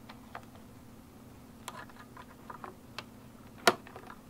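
Light clicks and taps of metal and plastic as a hand fits a washer onto the taillight's mounting stud, with one sharper click about three and a half seconds in. A faint steady hum sits underneath.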